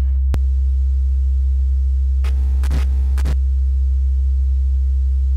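Loud, steady low electrical hum. About a third of a second in there is a click, and a fainter, higher steady tone joins the hum. From a little after two seconds in to about three and a half seconds there is a brief buzzing burst.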